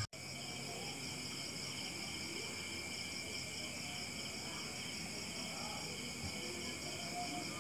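Crickets chirping in a steady chorus, several high pulsing trills overlapping at once.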